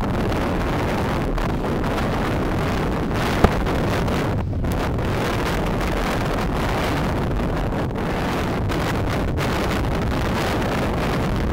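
Wind rushing over the microphone of a camera carried by a skier moving fast downhill: a steady, loud noise, with one sharp click about three and a half seconds in.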